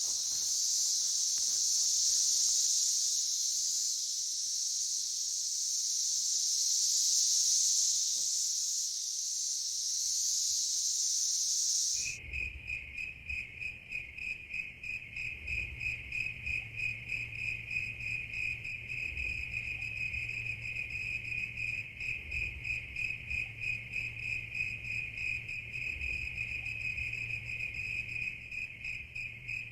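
Summer night chorus of insects in the forest: a steady, high-pitched buzzing drone, which changes abruptly about twelve seconds in to a lower, fast-pulsing cricket-like trill over a low hum.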